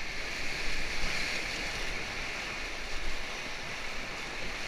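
Whitewater rushing and churning around an inflatable raft, a steady rush of water, with wind buffeting the microphone as a low rumble underneath.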